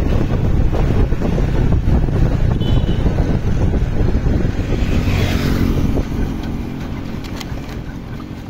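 Wind rushing over the microphone of a moving motorbike, with its engine running underneath. It gets quieter after about six seconds as the bike slows near the gate.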